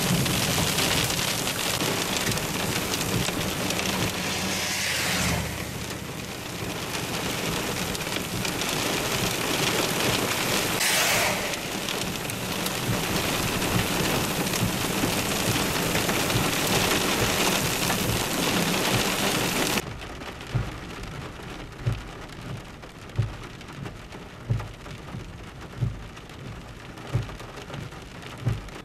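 Heavy rain pouring down, a loud steady hiss with a brief louder rush about eleven seconds in. About two-thirds of the way through it cuts to a quieter car interior where the windshield wipers thud about once every 1.3 seconds.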